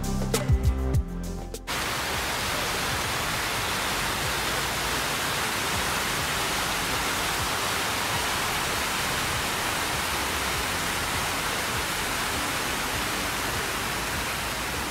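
Music for the first couple of seconds, then an abrupt switch to the steady rushing splash of fountain water jets falling back into the pool.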